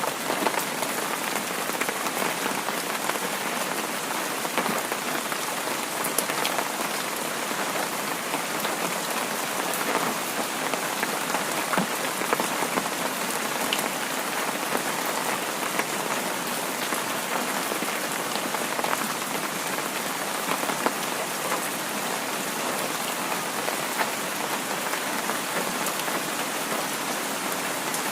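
Heavy rain falling: a steady, even hiss with many small drop hits scattered through it.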